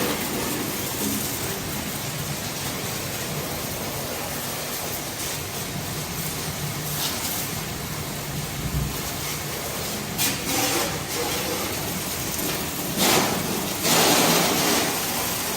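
Steady hiss of water spraying as a tractor is washed, with a few louder surges of spray about two-thirds of the way through and near the end.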